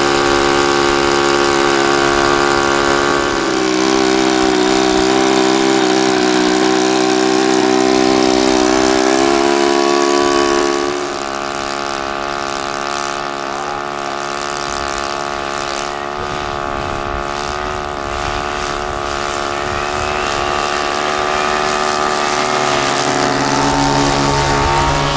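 Loudspeaker sound module on a large electric RC Albatros D.Va biplane, playing a steady drone of several held tones. The pitch steps up a few seconds in, and after about eleven seconds the sound is quieter and thinner.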